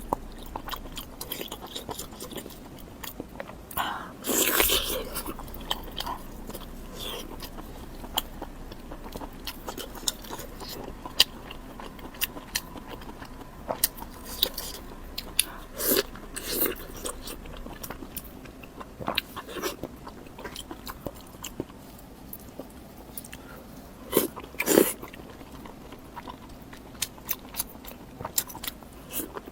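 Close-miked eating sounds: a person biting and chewing food, with a steady run of wet mouth clicks and a few louder bites.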